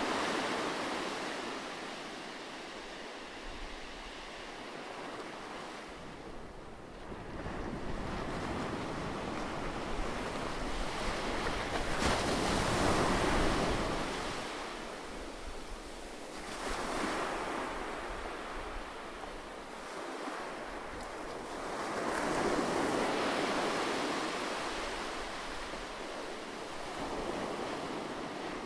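Ocean surf: waves rolling in and washing back, the hiss swelling and fading every five seconds or so.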